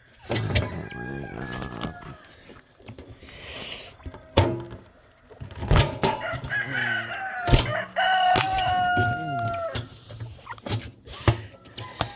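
Roosters crowing, several long held calls that sag slightly at the end, the longest about two seconds, over clucking chickens. Three or four sharp knocks cut in over the middle of the stretch.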